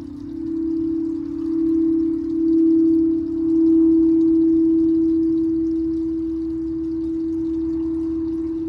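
Frosted quartz crystal singing bowls played with mallets: one sustained low hum that swells and eases in loudness with a slight wavering beat. A fainter, higher tone joins it for a couple of seconds in the middle.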